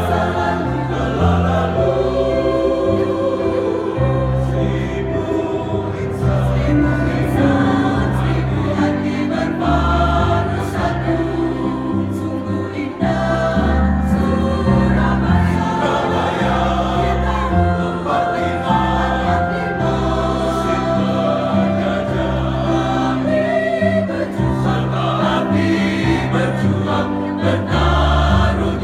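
A band playing a song while a group of voices sings together, over a steady bass line.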